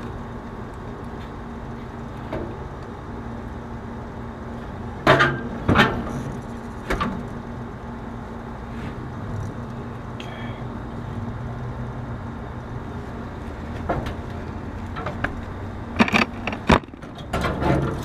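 Knocks and clunks of a heavy steel AC compressor shell being rocked loose and lifted out of a condensing unit's base: a few sharp knocks about five to seven seconds in and a cluster of clunks and scrapes near the end, over a steady low hum.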